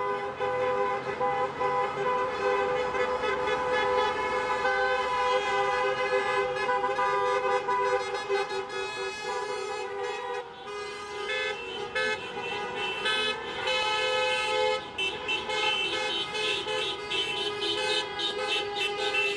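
Car horns honking in long, overlapping blasts from passing drivers, with several horn pitches sounding at once and a brief break about halfway through: drivers signalling support for the protesters.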